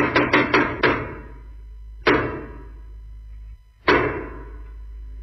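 Percussive sound effects in a radio jingle: the last quick strokes of a drum roll, then two sharp hits about two seconds apart, each dying away, over a low steady hum.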